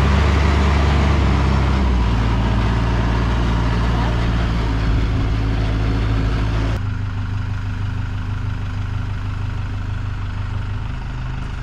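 Mahindra compact tractor's diesel engine running steadily, its pitch shifting about two seconds in. Partway through, the sound turns suddenly duller and quieter.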